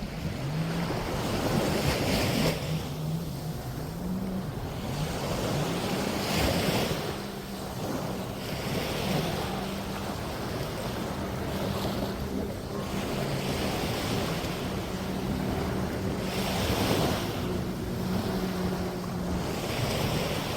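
Sea waves washing onto a beach, swelling and falling back every few seconds, over a steady low motor hum.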